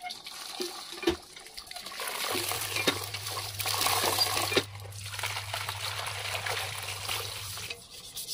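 Water from a hand pump gushing and splashing into a steel bowl of live crabs as they are rinsed by hand. The splashing is loudest in the middle and stops near the end.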